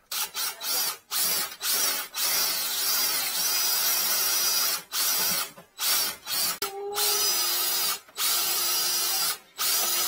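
Flex shaft drain cleaning machine running in short bursts, its motor whining and stopping and restarting repeatedly, as the spinning cable is worked into a clogged 40 mm kitchen sink drain pipe.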